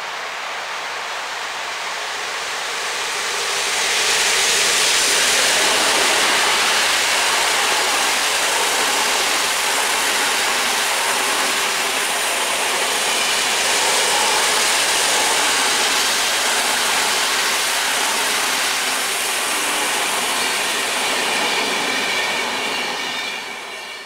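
EP07 electric locomotive and its string of passenger coaches rolling past close by while braking into a station. It is a steady rush of wheels on rail that grows loud about four seconds in, with faint brake squeal near the end before it fades out.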